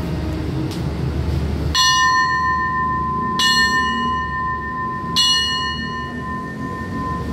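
A metal station bell struck three times, evenly about a second and a half apart, each strike ringing on long after the hit. Under it runs the low, steady rumble of the Hitachi 4521 diesel locomotive idling at the platform.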